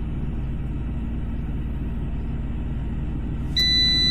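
Steady low hum of a running air fryer with a low rumble beneath it. About three and a half seconds in, the air fryer's timer gives one loud, steady, high electronic beep, signalling that the cooking cycle has ended.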